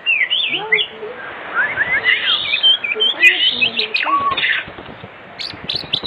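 White-rumped shama (murai batu) in full song: a varied run of clear whistles and chirps gliding up and down, ending in a fast trill of rapid repeated notes from about five and a half seconds in.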